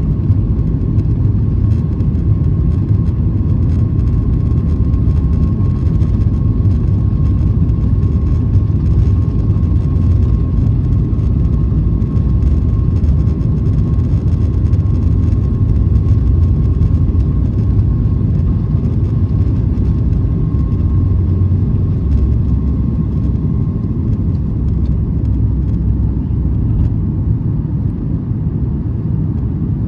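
Cabin sound of a Boeing 737 MAX 8 on its takeoff roll and initial climb: the CFM LEAP-1B engines at takeoff thrust and the wheels on the runway make a steady loud rumble. A steady high whine runs over it and fades out about three quarters of the way through.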